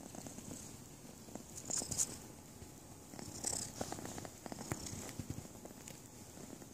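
Abyssinian kitten purring steadily close to the microphone. Rustling and bumping noises from the kitten rubbing against the microphone come over it, loudest about two seconds in and again about a second and a half later.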